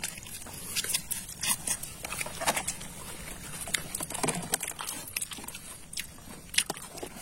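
Crab shells being bitten and chewed, in irregular crunching cracks and clicks.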